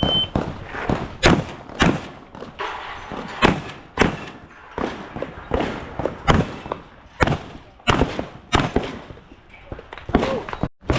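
Shotgun shots fired in a fast, uneven string during a practical-shooting stage, roughly one every half second to a second, each a sharp crack with a short echo. The sound cuts out for an instant near the end.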